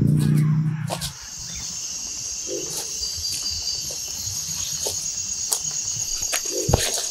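Forest ambience of insects, cricket-like, chirring steadily at a high pitch from about a second in, with scattered light clicks and snaps. It is preceded by a loud, low, steady hum that fills the first second.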